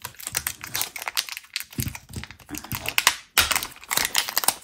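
Hands handling the plastic packaging of a diamond-painting drill pen: rapid, irregular clicking and crinkling of plastic.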